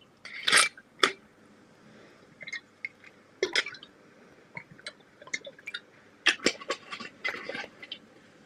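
Glass bottle handled and drunk from over a video call: scattered short knocks and clinks, with a cluster about six to seven and a half seconds in.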